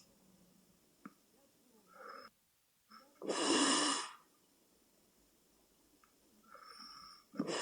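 A sleeping person snoring: a loud snore about a second long a few seconds in, and another starting near the end, with softer breath sounds between them.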